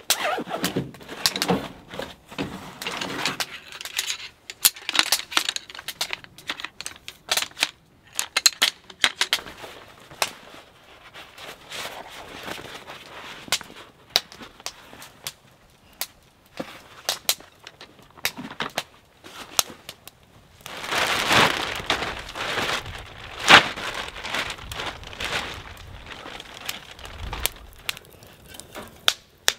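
Camping gear being handled: rustling of a fabric pack and a folding camp chair, with many clicks and knocks, then sticks of wood laid into a small fire crackling in a steel fire box.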